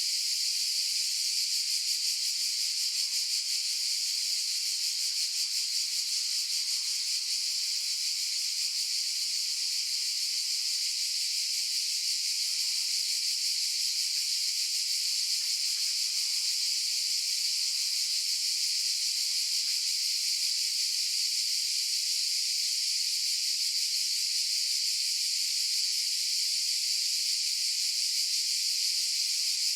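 Cicadas singing in a steady chorus: a high-pitched buzz with no pauses.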